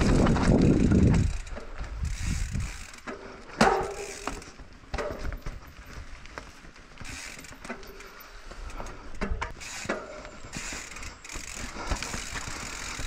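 Radon Swoop mountain bike coasting down a rough dirt singletrack. The rear hub's freewheel clicks and the chain and frame rattle in many irregular knocks over roots and rocks. There is a louder rumble of riding noise for about the first second and a half.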